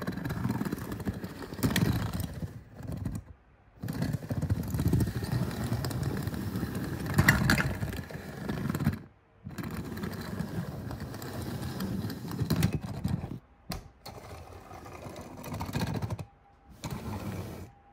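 Die-cast toy cars rolling across a ribbed plastic board: a rough, buzzing rumble from the wheels running over the ridges. It comes in stretches of a few seconds, each cut off suddenly by a brief silence.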